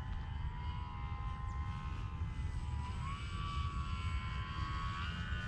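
Electric motor and propeller of a Dynam Cessna 188 RC model plane flying overhead: a steady whine that steps up in pitch about three seconds in and again near the end, over a low rumble.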